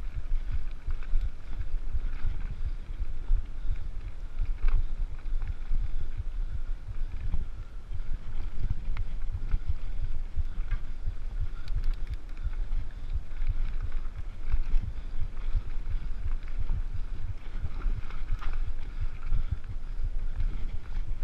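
Mountain bike ridden fast on dirt singletrack: steady low wind rumble on the camera microphone over the noise of the tyres on the trail, with scattered clicks and rattles from the bike.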